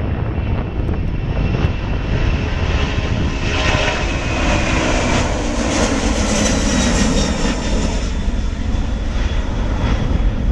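Boeing 767-200 jet airliner climbing out at take-off thrust. Its engines' roar swells as it passes, loudest from about four to seven seconds in, with a whine falling in pitch, over a steady low rumble.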